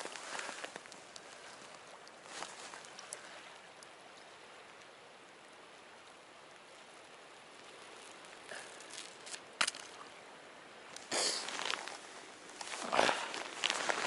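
Steady wind hiss, with scattered crunches of boots and handling in snow that grow louder and more frequent toward the end.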